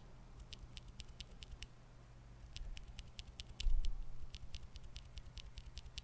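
Outemu Sky tactile mechanical keyboard switch, bare with no keycap, pressed and released by finger: a run of light sharp clicks, a brief pause about two seconds in, then a longer, quicker run of clicks. A dull low bump sounds about three and a half seconds in.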